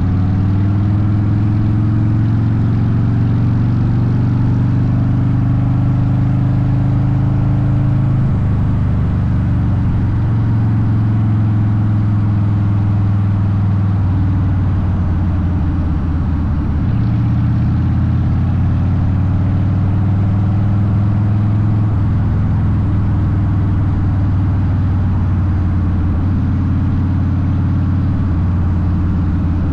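Harley-Davidson Softail Deuce V-twin running through a Vance & Hines exhaust while riding at road speed. The engine note is loud and steady, and its pitch shifts several times as the throttle and gears change.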